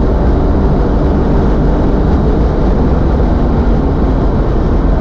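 A car accelerating flat out at about 200 km/h, heard from inside the cabin: its engine under load blends with wind and tyre roar into one loud, steady drone.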